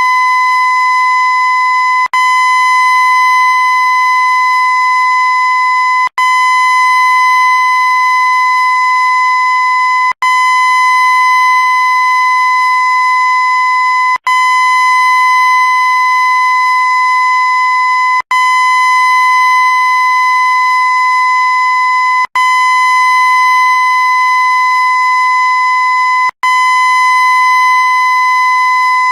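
A loud, steady, high-pitched horn-like tone held without change. It cuts out for an instant about every four seconds, where the sound loops.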